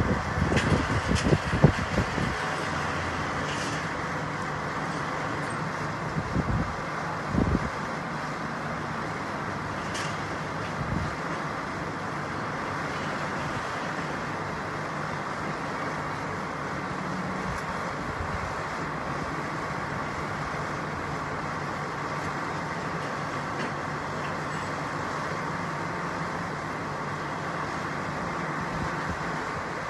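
Steady drone of idling heavy tow trucks and distant traffic, with a few gusts of wind buffeting the microphone in the first two seconds and again around six to seven seconds.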